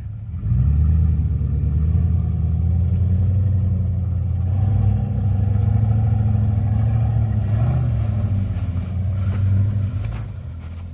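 Off-road 4x4's engine revved hard and held under load for about ten seconds as it drives or pulls through snow, coming in sharply about half a second in and easing off near the end.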